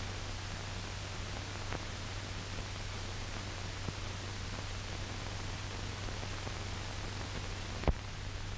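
Steady hiss and low hum of an old optical film soundtrack, with faint crackles and a single sharp pop near the end where the picture cuts, typical of a film splice.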